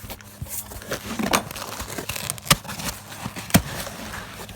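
A package being torn and opened by hand: packaging crinkling and tearing, with a few sharp snaps, two of them loudest about two and a half and three and a half seconds in, over a steady low hum.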